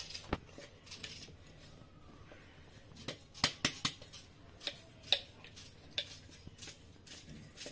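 Scattered sharp metallic clicks and taps from a steel jar as freshly ground spice powder is knocked out of it onto chicken, with a cluster of clicks about three to four seconds in.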